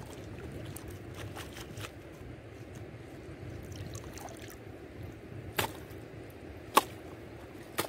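Shallow seawater sloshing and dripping as a mud-caked clump is worked loose and lifted from the tidal flat, with water trickling off it. Three sharp clicks in the second half.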